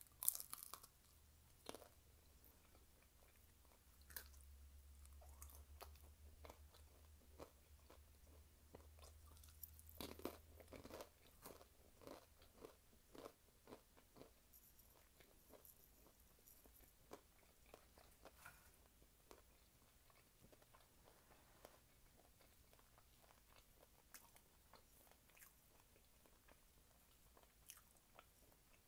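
Faint, close-miked biting and chewing of fried beef-and-cheese taquitos: crunchy bites with chewing between them, coming thickest about ten seconds in.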